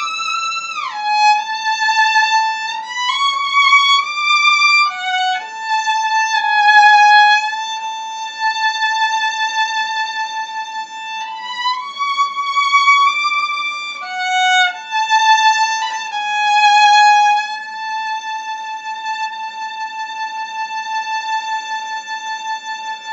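Solo violin playing a slow melody, one note at a time with vibrato, sliding down in pitch about a second in and closing on a long held note for the last few seconds.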